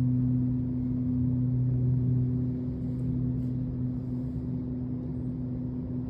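Steady low drone of sustained deep tones; the lowest tone fades and a slightly higher one comes in about two and a half seconds in.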